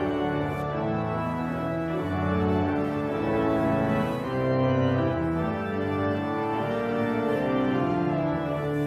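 Organ music: slow, sustained chords that change every second or so over a low bass line.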